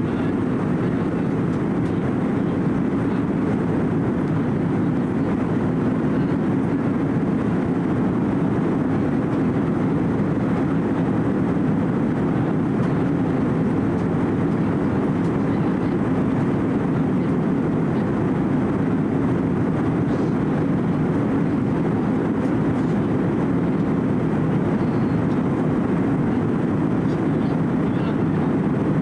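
Steady cabin noise inside an Airbus A320-200 airliner in flight: an even, deep roar of the jet engines and the air rushing past the fuselage, unchanging throughout.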